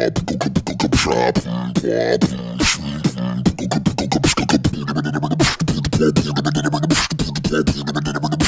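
Beatboxing with the voice deepened by inhaled sulfur hexafluoride: rapid drum-like clicks and snare hits over a steady low hum.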